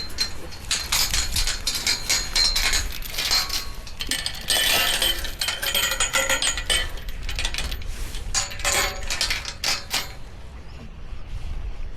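Repeated metallic clinking and clanking, some strikes leaving a brief ringing tone, which dies down about ten seconds in.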